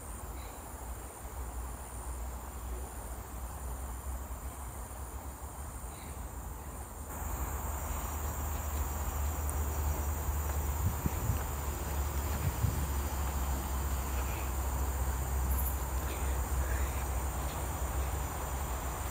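Insects trilling steadily in a high pitch, over a low rumble; the whole background grows louder about seven seconds in.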